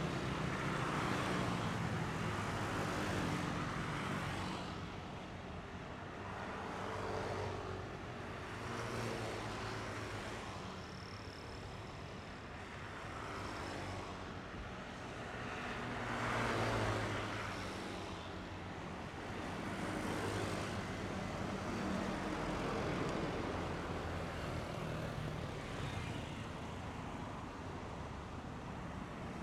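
Busy road traffic: motorcycle, car and truck engines running as vehicles pass, the noise swelling and fading with each pass. The loudest pass comes about seventeen seconds in.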